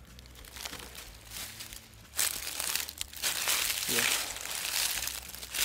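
Footsteps crunching and rustling through dry fallen leaves, quiet at first and then loud from about two seconds in.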